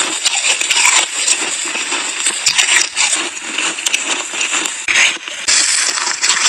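Close-up crunching of a mouthful of fresh snow being chewed, a dense run of crisp crackles that dips briefly near the end.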